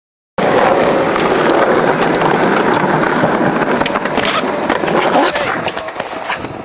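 Skateboard wheels rolling on rough street pavement, a loud steady rolling noise, with several sharp clacks of a board on concrete.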